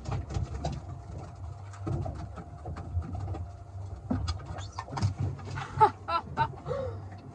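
Scattered knocks and clatter of a landing net and a thrashing fish being handled on a small boat, over a steady low hum. A few short pitched cries come about six seconds in.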